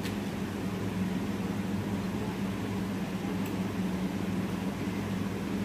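Steady low mechanical hum with an even hiss over it, and a faint click at the start and another about three and a half seconds in.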